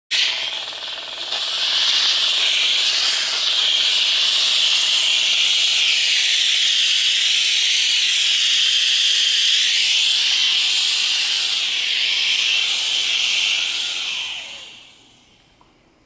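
Polti Vaporetto SV440 Double handheld steam cleaner jetting steam from its window nozzle onto a mirror: a loud, steady hiss that fades out shortly before the end.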